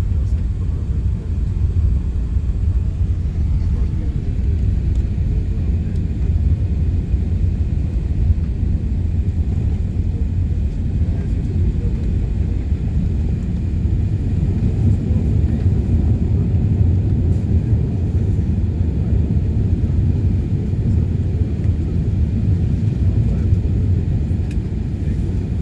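Steady low rumble inside the cabin of an Airbus A380-800, from engine and airflow noise, with a faint high whine over it.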